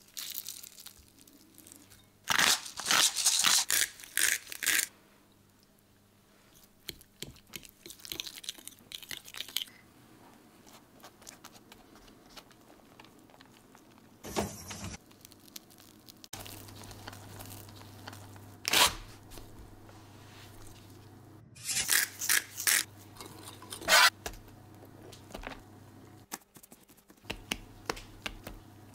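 Close-up food preparation sounds: crunching, tearing and rustling as a crusty baguette and its toppings are handled, in short irregular bursts, the loudest a couple of seconds in and again about three-quarters of the way through.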